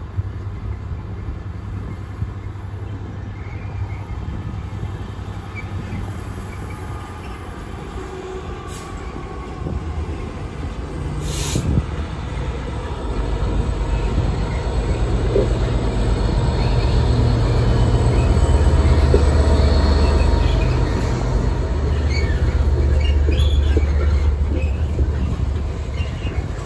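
Freightliner Class 66 diesel locomotive, with its two-stroke V12 engine, hauling a container freight train past. Its low engine drone grows louder from about halfway through as the locomotive draws level and goes by. The rumble of the container wagons on the rails follows near the end.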